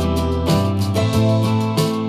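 Instrumental track with guitar over a steady beat, played through a JBL Flip 5 portable Bluetooth speaker as a sound test.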